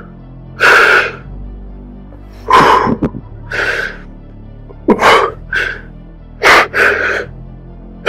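A man sobbing hard: about seven loud, breathy gasping sobs, each under a second, some coming in quick pairs.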